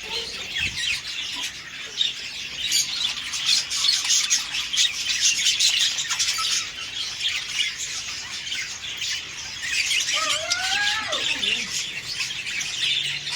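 A flock of small cage birds in an aviary chirping and squawking continuously, many calls overlapping into a busy chatter, with a few lower gliding calls about ten seconds in.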